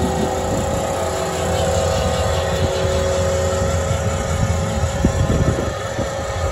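Cat 259D3 compact track loader's diesel engine running steadily under load as the bucket grades loose soil, with a steady whine over the engine and a few knocks about five seconds in.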